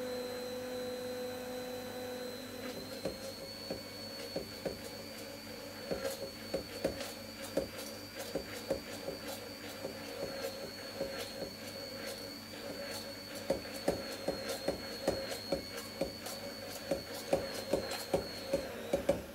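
Immersion blender motor running steadily in a stainless-steel beaker, emulsifying mayonnaise as oil is poured in little by little, with frequent short knocks and clicks as it works in the beaker. The motor stops near the end.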